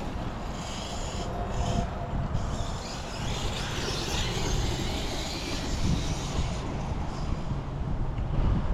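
Losi DBXL-E 2.0 1/5-scale electric buggy running at speed some distance off: a faint whine from its 800 kV brushless motor on 12S over steady tyre and outdoor noise.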